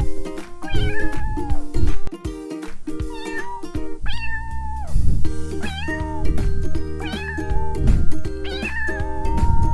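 Domestic cat meows over a music backing track with chords and a steady low beat. The same rising-then-held meow recurs about half a dozen times in time with the music, like a looped sample.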